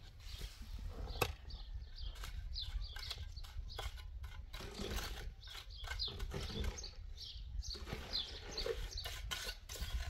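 Chickens calling, with many short, high cheeps repeated throughout. A single sharp knock about a second in.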